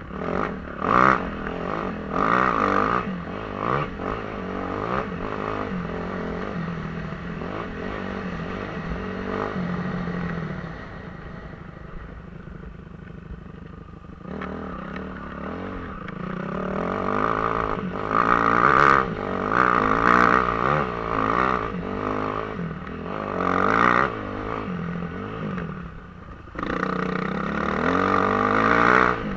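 Suzuki RM-Z250's four-stroke single-cylinder engine under way on a dirt trail, its pitch rising and falling repeatedly as the throttle is worked through the gears. Near the middle the throttle is closed for a few seconds and the engine drops quieter before it pulls hard again.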